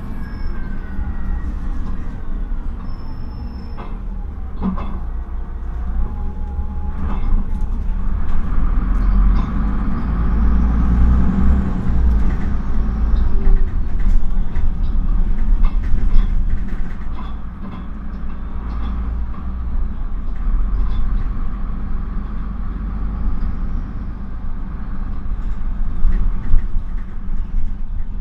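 Interior ride noise of a Solaris Urbino 15 III city bus on the move: the 9.2-litre DAF PR228U1 diesel and Voith automatic gearbox running under a deep steady rumble, with rattles from the body. The sound builds from about six seconds in, eases off briefly near the eighteen-second mark, and swells again near the end.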